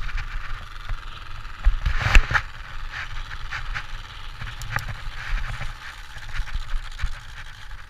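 Simulated motorcycle engine sound from an electronic sound box mounted on a bicycle like an exhaust pipe, running as the bike is ridden, mixed with a low rumble and rattles from the ride. There is a louder knock about two seconds in.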